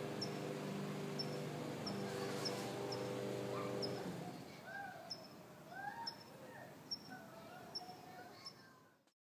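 Outdoor ambience: a steady low hum stops about four seconds in. A faint high chirp repeats a little more than once a second, and a few short rising-and-falling animal calls follow. All sound cuts off just before the end.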